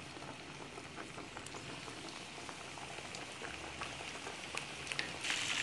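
Hot oil in a deep frying pan bubbling with a fine crackle, rising near the end to a louder, denser sizzle as a flour-coated chicken drumstick is lowered in to deep-fry.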